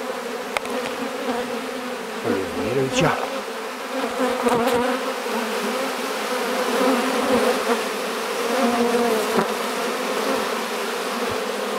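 Honeybees clustered in a thick mass on the outside walls of a hive, buzzing in a steady, dense hum.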